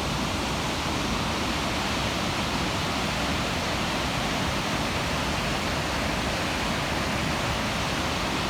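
Steady rushing of the fast-flowing Coquihalla River in its gorge, running high after the flood.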